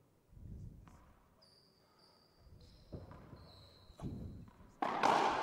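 A racquetball bounced on the hardwood court floor a few times, with sneakers squeaking, then a sharp loud hit about five seconds in that echoes through the enclosed glass court as the ball is served into the front wall.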